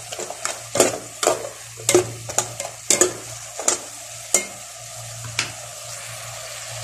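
Metal spatula scraping and clinking against an aluminium pot, stirring chayote and carrots as they sauté, over a steady sizzle of frying. The strokes come about twice a second and stop about five and a half seconds in, leaving only the sizzle.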